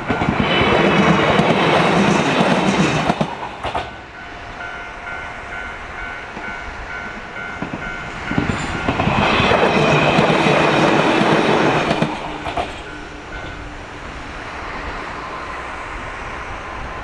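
Japanese level-crossing warning bell ringing in a steady repeating beat while trains rush past twice, once right at the start and again about nine seconds in, each time with a burst of wheel rumble and clatter. The bell stops about thirteen seconds in, leaving a low steady hum.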